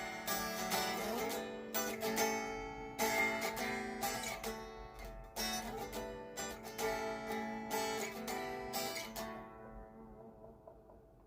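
Solid-body electric guitar played unplugged, strummed chords ringing from the bare strings. The last chord is left to ring out and fades from about nine seconds in.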